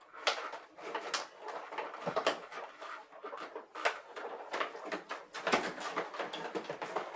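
Plastic toy packaging being handled and pulled apart: irregular crinkles, clicks and snaps of the plastic tray and wrapping as a boxed starship model is worked free.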